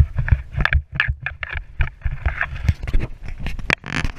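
Handling noise of a GoPro camera being grabbed and repositioned on a kayak: a quick run of irregular knocks, taps and scrapes against the hull and fittings, over a low rumble.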